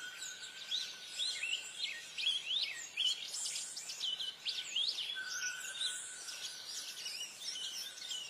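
Birds chirping and whistling: a busy run of quick notes that sweep up and down in pitch, with a faint steady high tone underneath.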